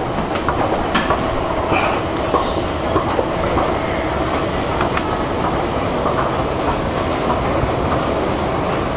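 Subway station escalator running: a steady mechanical rumble and hum with an occasional sharp clack.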